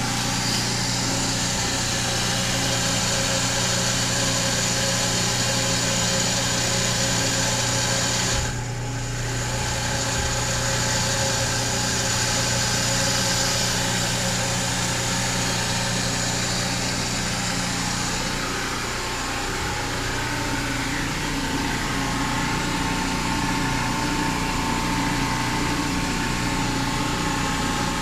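Marine reverse-osmosis watermaker running steadily: its pump motor hums, with a high hiss of water under pressure that drops out briefly about eight seconds in. The unit is newly started after a solenoid valve replacement and is still at low pressure.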